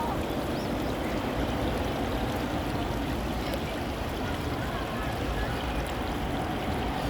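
Mountain stream water flowing in a steady rush.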